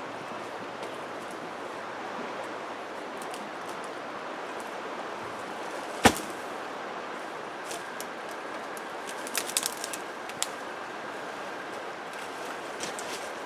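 A long dead log thrown down onto stony ground lands with one loud thud about six seconds in, over a steady background rush of flowing water. A few sharp snaps of dry sticks follow a few seconds later.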